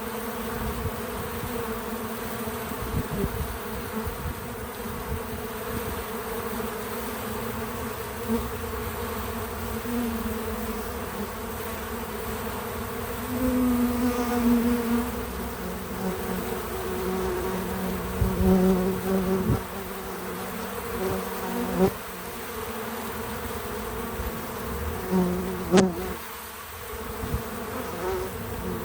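Bees buzzing at a feeder: a steady hum of many wings. Now and then a single bee flies close and its buzz swells louder for a second or two, its pitch shifting as it passes. One sharp click comes about three quarters of the way through.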